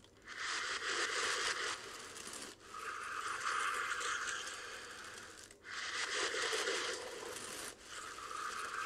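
Deep breaths in and out of a plastic bag held sealed over the mouth and nose, rebreathing the same air; the bag crinkles and rustles with each breath. There are about four breaths, each two to three seconds long, with short breaks between them.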